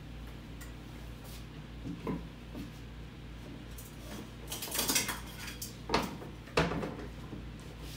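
Metal kitchen utensils clinking and clattering in a few short bursts, the busiest stretch about halfway through, as a serving utensil is fetched and swapped, over a steady low hum.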